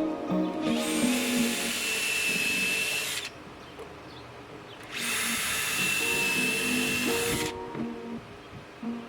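Power drill running in two steady bursts of about two and a half seconds each, with a constant high motor whine, over background music.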